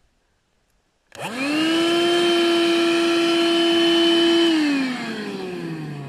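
18-volt cordless vacuum cleaner switched on about a second in: its motor spins up quickly to a steady high whine, runs for about three seconds, then is switched off and winds down with a falling whine.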